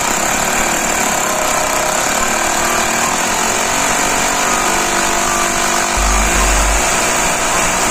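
Planet Power electric rotary hammer drill boring into a concrete floor with a masonry bit, drilling the hole for a wedge anchor. It starts at once and runs steadily.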